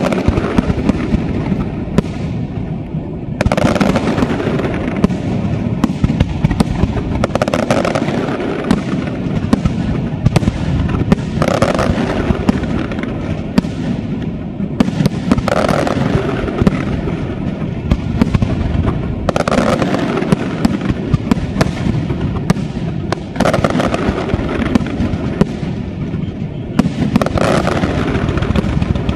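Large aerial fireworks display: a rapid, unbroken string of shell bursts and crackles, with louder, denser stretches about every four seconds.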